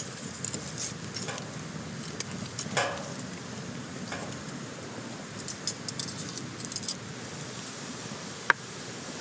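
Wood campfire burning with a steady low rush and scattered crackles and small pops, a cluster of them about two-thirds of the way through, and one sharp snap near the end.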